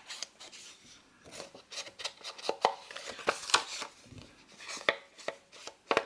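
Round foam ink-blending tool dabbed and rubbed along the edge of a sheet of patterned paper: a run of quick, irregular taps and scuffs on the paper.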